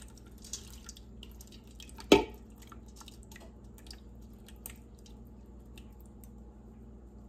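Thick tomato spaghetti sauce pouring from an upturned glass jar into a stainless steel pot, with small wet drips and plops and one louder glug about two seconds in.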